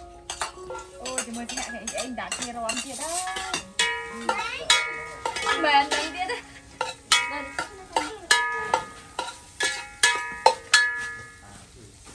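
Metal cooking utensils clinking and scraping: a ladle stirring in a large aluminium pot and tongs working meat on a wire grill grate, with many sharp, ringing metallic clinks.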